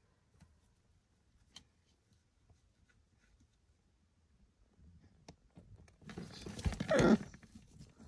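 Baby Catalina macaw, a blue-and-gold × scarlet macaw hybrid, giving a loud, harsh squawk lasting about a second, about six seconds in, after a quiet stretch of faint clicks and rustles.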